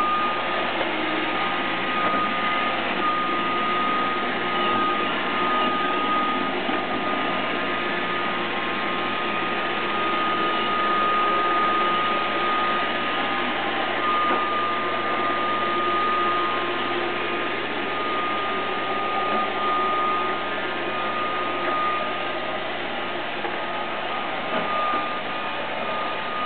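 Roomba robot vacuum running: the steady whirr of its vacuum motor with a constant high whine.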